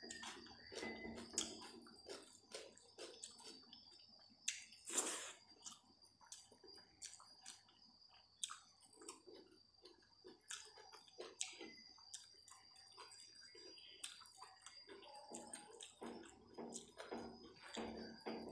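Quiet close-up eating sounds: soft chewing and the wet squish of rice, saag and curry being mixed by hand on a steel plate, with many small mouth and finger clicks. A sharper smack about five seconds in is the loudest. A faint steady high whine runs underneath.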